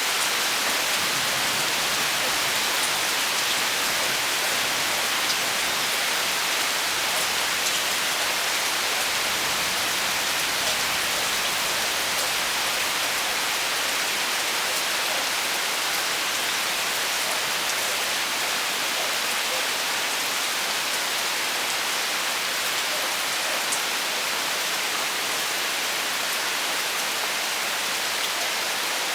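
Steady heavy rain falling, an even hiss of drops on surfaces with a few faint individual drop ticks.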